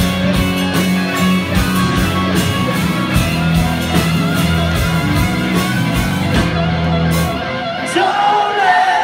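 Live rock band playing loud in a club: electric guitars, bass and drums, with singing. About six and a half seconds in the cymbals and drums drop away, and near the end a voice holds a long note over the guitars.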